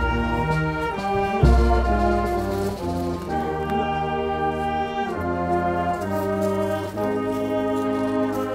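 Brass band playing a slow piece in long held chords that change every second or two, with a low thump about a second and a half in.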